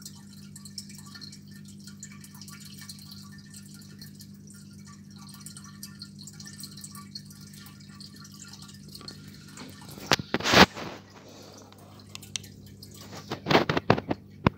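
Aquarium water dripping and trickling over a steady low hum. There are loud knocks about ten seconds in and several more near the end.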